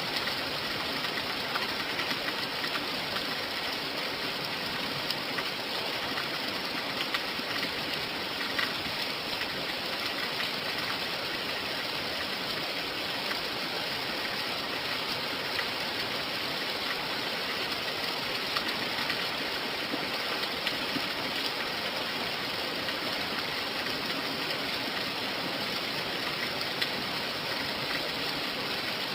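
Steady rain falling, a continuous even hiss with scattered faint drop ticks.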